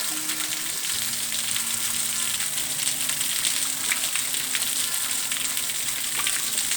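Steady rushing hiss of a waterfall close by, with scattered faint clicks.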